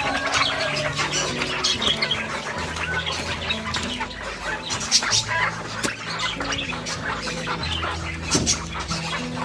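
A flock of small cage birds chirping and squawking densely, over background music with held low notes.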